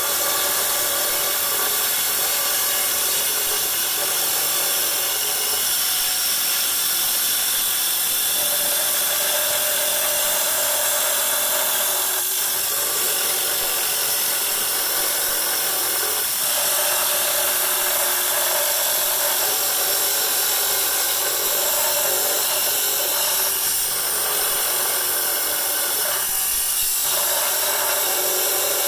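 Powered stone-cutting saw cutting through an agate stone: a steady high whine with grinding hiss. The sound shifts briefly several times.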